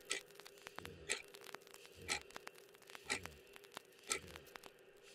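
Slow, regular ticking about once a second, each tick paired with a low thump that falls in pitch, over a faint steady tone: a clock-like pulse in a film soundtrack.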